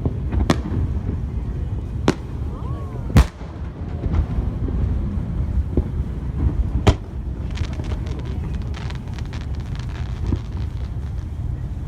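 Fireworks shells bursting overhead: a series of sharp bangs a second or a few seconds apart, the loudest about three seconds in, with a stretch of fine crackling a little past the middle, over a steady low rumble.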